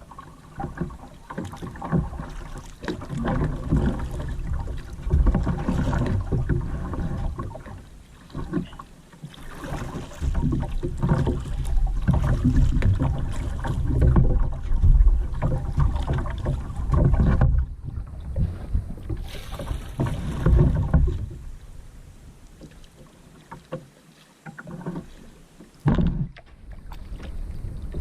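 Kayak paddling on a river: paddle strokes splashing and churning the water in an uneven rhythm. The sound eases off for a few seconds past the middle and picks up again near the end.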